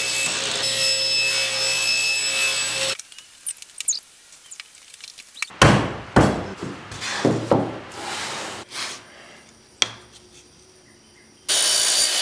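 Table saw ripping a sheet of plywood, a steady loud run that cuts off about three seconds in. Then scattered rubbing and knocking of wooden drawer parts being handled. Near the end a DeWalt miter saw cuts a thin strip of wood.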